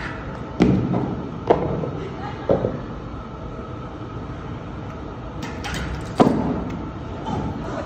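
Gym weights clanking: four sharp knocks of weight plates and barbell metal, each with a short ring, the loudest about six seconds in, over steady gym background noise.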